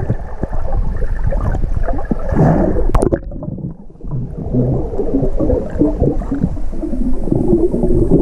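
Muffled underwater sound picked up by a submerged action camera: water rushing and bubbling as snorkellers dive down, with many small knocks and one sharp click about three seconds in.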